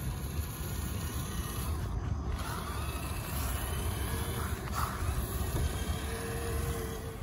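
Traxxas TRX-6 6x6 RC crawler's electric motor and geared drivetrain whining faintly as it crawls along a dirt path, over a steady low rumble.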